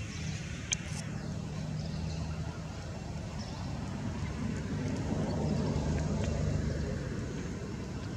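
Low, steady motor-vehicle engine hum that swells about five seconds in and eases again near the end, with a single sharp click just under a second in.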